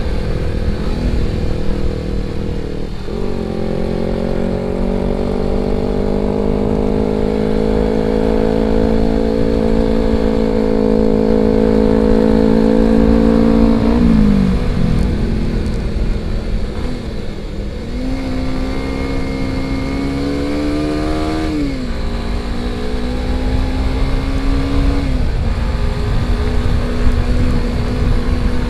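Motorcycle engine under way. The revs climb slowly for about ten seconds, drop sharply about fourteen seconds in, climb again and drop near twenty-two seconds, then hold steady, over a constant low rush of wind noise.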